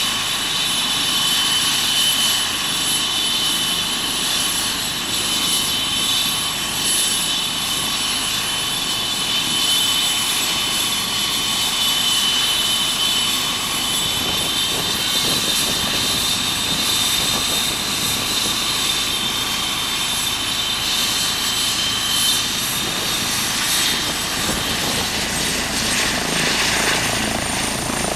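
Eurocopter EC135 air ambulance helicopter running on the ground with its rotor turning, a steady high turbine whine over the rotor noise. About three-quarters of the way through, the whine steps up and climbs in pitch as power comes up for lift-off.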